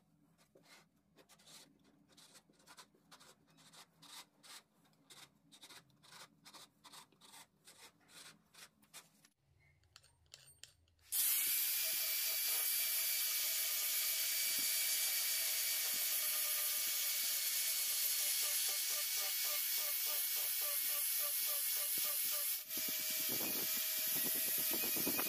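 Felt-tip marker scratching along wood in short strokes, about two a second. About eleven seconds in, an electric angle grinder starts suddenly and runs steadily with a faint motor whine, its disc grinding and sanding the edge of a pine disc.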